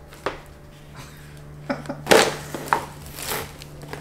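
A cardboard shoebox being opened and its plastic-wrapped contents handled: the lid knocking and sliding, with bursts of plastic crinkling. A handful of sharp handling noises, the loudest about two seconds in.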